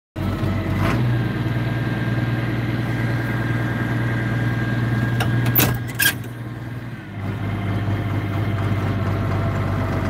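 John Deere tractor's diesel engine running steadily, heard from inside the cab. A couple of sharp clicks come about five and a half to six seconds in, and the engine sound dips briefly near seven seconds before settling back.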